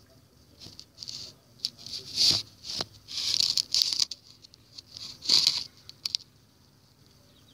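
Scratchy rustling bursts with a few sharp taps, from the tablet being handled close to its microphone.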